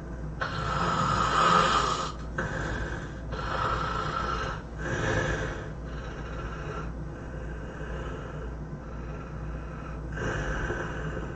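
A person snoring in a run of rough, noisy breaths about a second long each, the first the loudest, the middle ones weaker. A steady low hum lies underneath.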